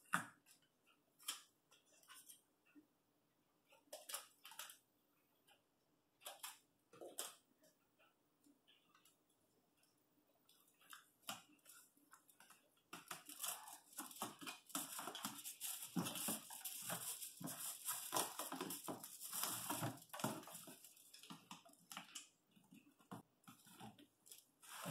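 Aluminum foil tape being peeled, crinkled and pressed down onto a cardboard box: scattered light crackles at first, then about halfway through a denser stretch of rapid rustling and crinkling.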